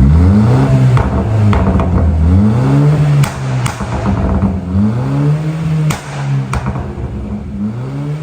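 Mercedes A180 1.6 turbo four-cylinder being blipped repeatedly through an exhaust with both back boxes deleted. As the revs fall after each blip, sharp pops and crackles sound from the stage 1 tune's overrun map.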